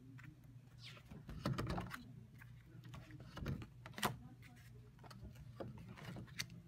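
Pages of a ring binder in plastic sheet protectors being handled and turned: soft rustles of plastic and a few sharp clicks, the loudest about four seconds in.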